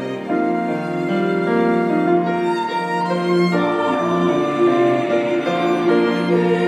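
A small ensemble playing a slow, sustained melody in harmony, the violin most prominent, with flute and cello beneath: the instrumental accompaniment of a church choir anthem.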